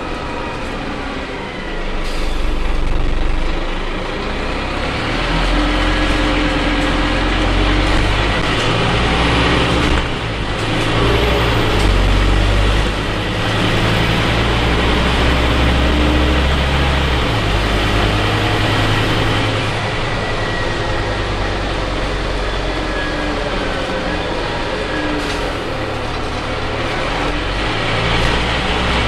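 Scania N310UA city bus heard from inside the cabin while under way: the diesel engine drones, with its note stepping up and down several times as the bus changes speed, over steady road noise.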